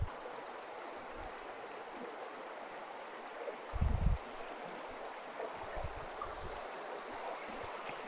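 A river flowing over stones: a steady rushing of water, with a brief low thump about four seconds in.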